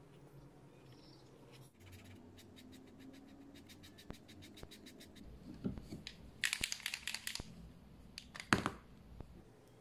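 POSCA paint marker tip scratching on paper: a run of fast light ticks, then louder scratchy strokes about six and a half and eight and a half seconds in.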